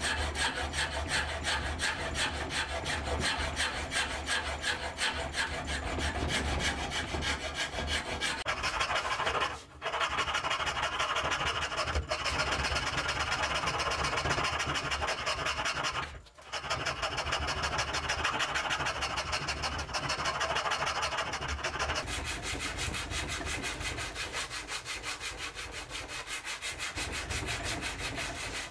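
A metal file scraping along wooden knife-handle scales clamped in a vise, in rapid back-and-forth strokes with two brief pauses. About three-quarters of the way through the sound changes to a lighter, finer rubbing on the wood.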